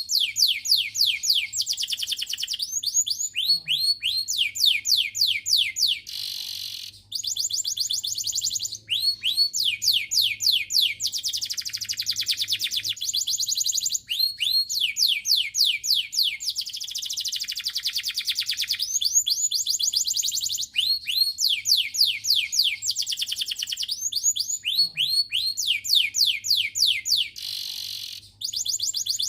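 Domestic canary singing in long, rapid trills of repeated downward-sweeping notes. The song changes from one trill type to the next, with short breaks about seven seconds in and near the end.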